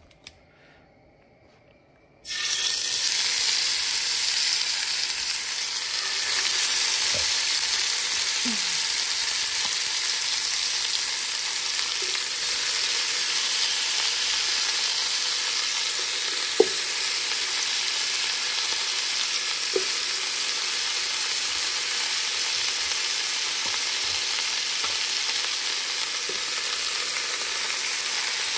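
Seasoned oxtail pieces sizzling as they sear in hot oil in a nonstick pan. The sizzle starts suddenly about two seconds in and then holds steady, with two sharp clicks partway through.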